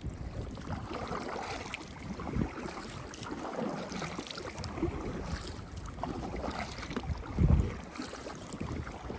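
Kayak paddles splashing in choppy water, with wind buffeting the microphone in low rumbling gusts; the biggest gust comes about seven and a half seconds in.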